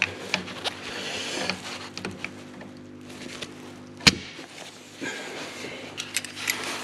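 Groove-joint pliers clicking and scraping on metal parts around the timing belt tensioner in the engine bay, with one sharp metallic clack about four seconds in, over a steady low hum.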